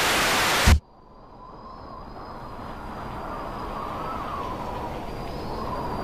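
Loud television static hiss that cuts off with a thump less than a second in. A low rumbling noise with a faint wavering whistle follows and slowly swells.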